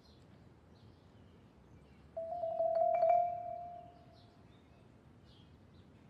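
A single ringing mallet-percussion note in the soundtrack, starting about two seconds in, swelling and then fading away over about two seconds. Faint short bird chirps sound in the background.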